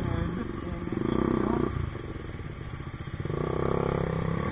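Vehicle engine running in road traffic. It speeds up about a second in, eases off, then picks up again after about three seconds.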